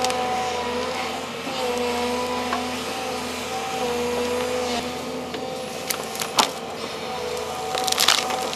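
Volvo excavator's diesel engine and hydraulics running under load, a steady hum whose pitch shifts in small steps as the machine works. A few sharp cracks and knocks come in the second half.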